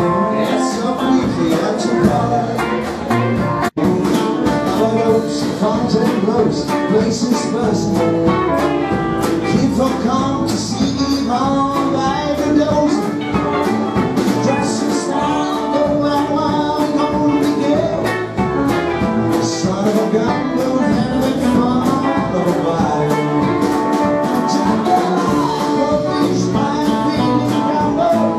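Live rock band playing, with electric guitars, bass guitar, drums and a male lead vocal. The sound cuts out for an instant about four seconds in.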